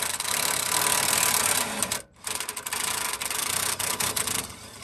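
Cordless ratchet running, spinning out a bolt: two long stretches of steady motor-and-gear buzzing with a short break about two seconds in.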